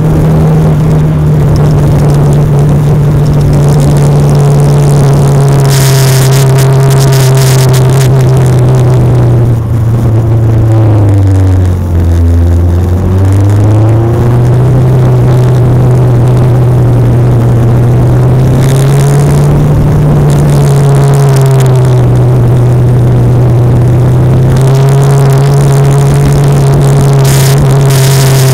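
Legend race car's Yamaha four-cylinder motorcycle engine running at high, steady revs; about halfway through its pitch dips briefly and climbs back up.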